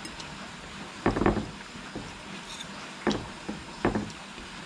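A person eating from a plate with a spoon and fork: a few short eating and cutlery sounds over a steady background hiss.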